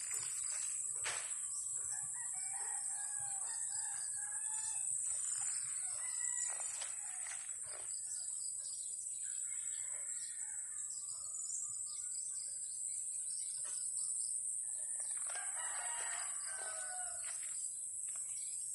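Roosters crowing several times, over a steady high-pitched buzz of insects.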